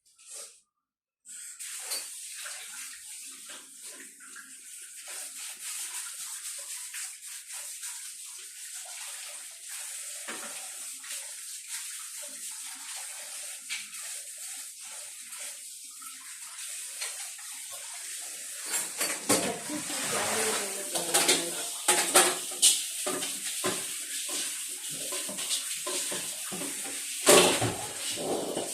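Water running from a kitchen tap into a sink, starting about a second in, with louder splashing and clattering of pots or dishes in the last third.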